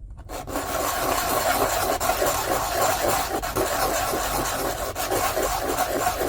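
A 3D-printed plastic part rubbed back and forth on sandpaper at about four strokes a second, starting about half a second in. The steady sanding flattens its end so it stands square.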